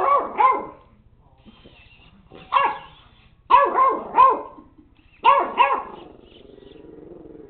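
A puppy barking in quick bursts of two or three high-pitched barks with short pauses between. A lower, steady sound follows near the end and then stops.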